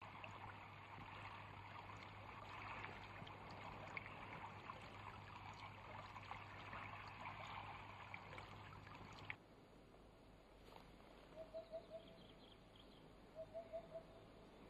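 Faint running stream water, a steady rushing with small splashy clicks, that cuts off abruptly about nine seconds in. In the quieter stretch after it, two short runs of four quick, pitched notes are heard.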